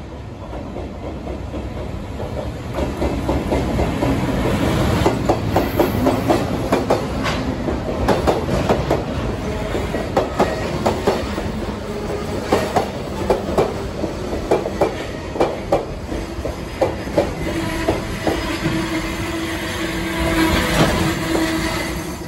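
Freight train of Koki 106 container wagons rolling past, its wheels clacking sharply over the rail joints again and again. A steady squeal comes in near the end as the train brakes to stop.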